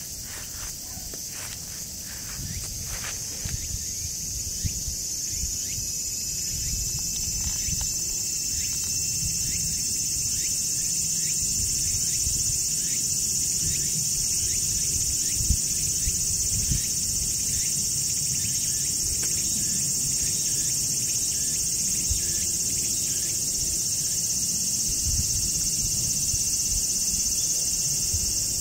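Steady, high-pitched chorus of insects that swells over the first several seconds and then holds, with a second thin steady insect tone joining about five seconds in. A few soft rustles near the start and a low rumble underneath.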